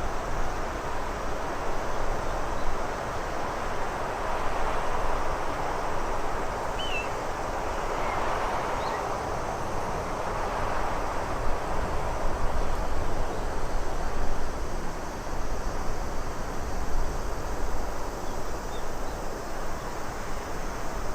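Steady wind ambience, a continuous rushing noise with a low rumble underneath that swells gently and eases off. A few faint short chirps sound about a third of the way in.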